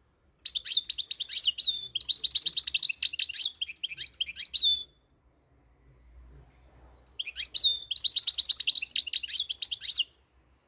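Moroccan goldfinch (European goldfinch) singing two fast twittering song phrases, the first about four seconds long and the second about three, with a short pause between.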